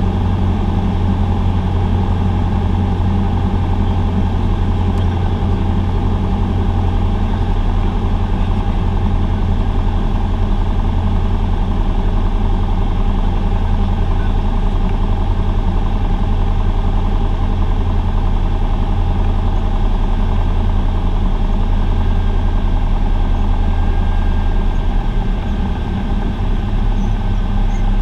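Cessna 172's piston engine and propeller droning steadily, heard inside the cockpit during approach and landing. The low engine note shifts about three-quarters of the way through, and a faint thin high tone joins near the end.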